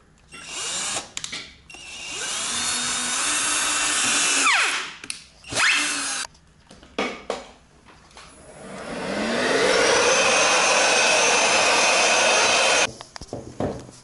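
Cordless drill-driver driving screws into a furniture panel in several runs. There are short bursts, then a run of a few seconds whose whine rises and then winds down with a falling pitch. A last, steadier run of about four seconds cuts off sharply near the end.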